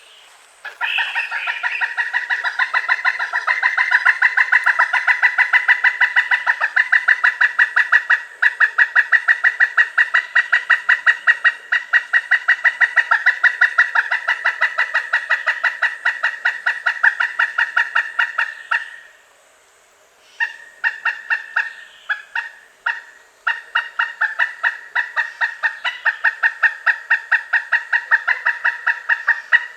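Pileated woodpecker calling: a long series of sharp, high-pitched, evenly repeated kuk-kuk notes. It breaks off briefly about two-thirds of the way through, then resumes in shorter runs.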